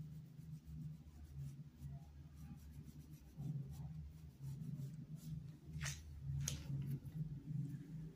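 Faint scratching of a paintbrush stroking fabric paint onto a cloth dish towel, over a steady low hum, with two sharp clicks about six seconds in.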